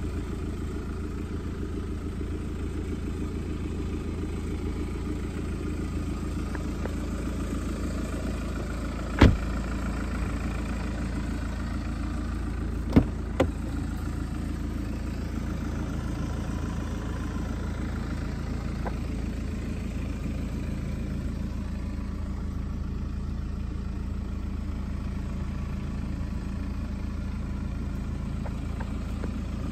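2012 BMW 520d's four-cylinder turbodiesel engine idling steadily. A sharp knock comes about nine seconds in and two more about thirteen seconds in.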